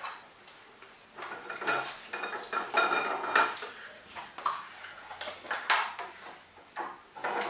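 Hands rummaging through glass bowls of small draw capsules, the capsules clattering and clicking against the glass and each other in irregular bursts.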